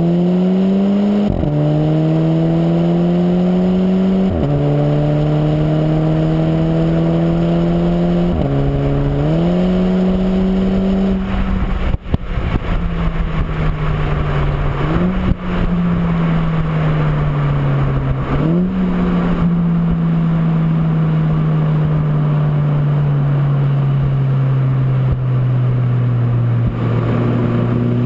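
Exhaust note of a VW Golf 5 GTI's 2.0-litre turbocharged four-cylinder through a custom 3-inch (76 mm) stainless-steel exhaust with a sports catalytic converter, heard at the tailpipe while driving. The engine pulls up in pitch through three upshifts, each marked by a sudden drop, and the driver lifts off about 11 seconds in. Two quick jumps in revs follow, like downshifts, near 15 and 18 seconds, then the note falls slowly as the car slows.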